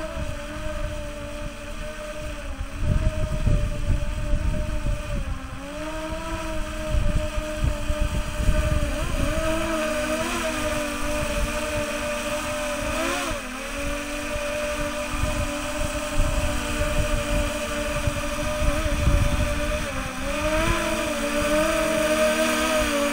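DJI Phantom 3 Professional quadcopter hovering low overhead: its propellers give a steady buzzing whine whose pitch bends up and down as the motors adjust. Gusts of the rotor backwash buffet the microphone with a low rumble that comes and goes.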